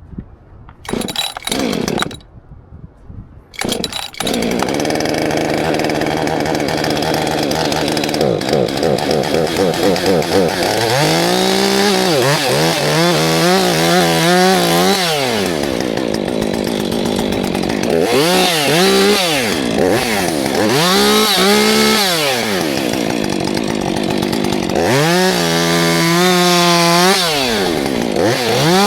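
Husqvarna 592 XP chainsaw: a few short bursts in the first four seconds, then the saw runs continuously from about four seconds in. From about ten seconds on it is repeatedly revved up and eased off, its pitch rising and falling, as it cuts through large poplar wood.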